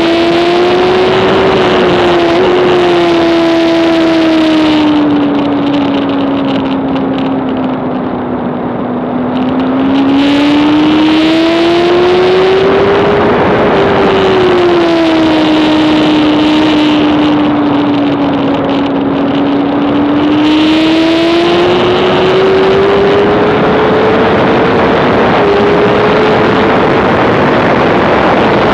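2007 Honda CBR600RR's inline-four engine at racing revs, recorded on the bike, its pitch climbing and falling slowly as it accelerates and slows for corners, with wind rush. It eases off and quietens about a third of the way through, then pulls hard again.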